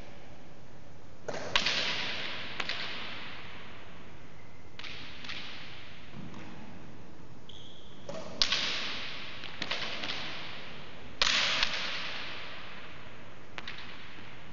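A hard racquets ball struck with a racquet and cracking off the walls and floor of a racquets court, in several quick clusters of sharp impacts, each with a long echo from the court's hard walls. A brief squeak about halfway through.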